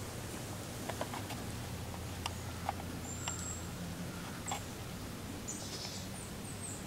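Scattered light crackles and twig snaps in dry forest leaf litter, like something walking through the leaves, with a few high, thin bird chirps that come in a quick repeating series near the end.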